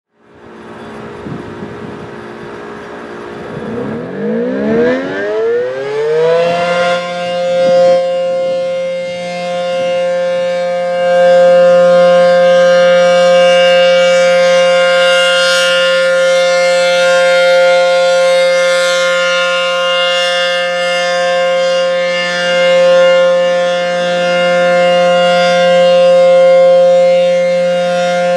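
ACA P-10 outdoor warning siren winding up, its pitch rising steeply over the first several seconds, then holding the steady tone of the alert signal. The loudness swells and dips slowly as the rotator turns the horn.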